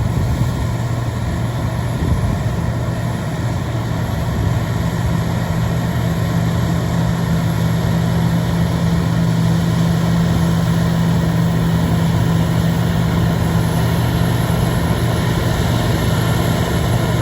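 Heavy diesel engine of large farm machinery running steadily, a low drone that grows a little louder about four seconds in.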